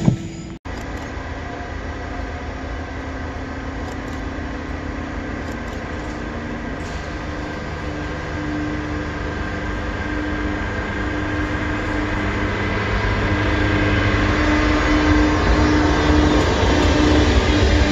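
Train running, with a steady hum, growing gradually louder.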